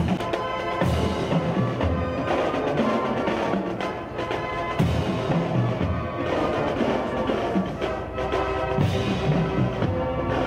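Marching band playing, its bass drums and cymbals beating under a tune of held notes.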